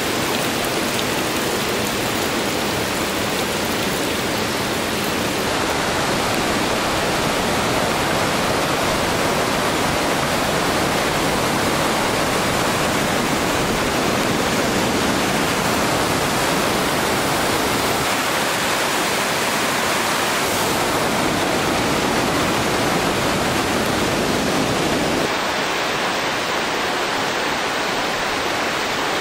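Rushing mountain creek: a loud, steady wash of running water, a little thinner in the low end near the end.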